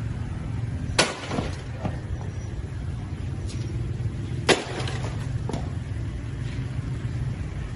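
A heavy rock slammed down onto a fallen motorbike, its plastic bodywork breaking: two sharp loud smashes, about a second in and about four and a half seconds in, each followed by lighter knocks.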